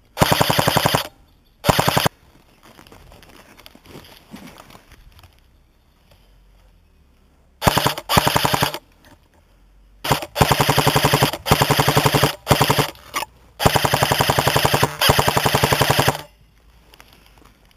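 Airsoft gun firing on full auto: rapid bursts of evenly spaced shots, two near the start and then a string of longer bursts, some over a second long, through the second half.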